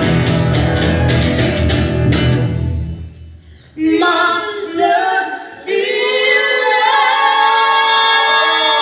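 Loud dance music with singing and a heavy drum beat. The beat cuts out just after two seconds in, and after a short break the singing carries on without the drums.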